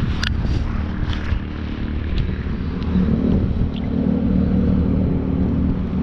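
A motor running with a steady low drone that grows a little stronger about halfway through, with a few light clicks over it.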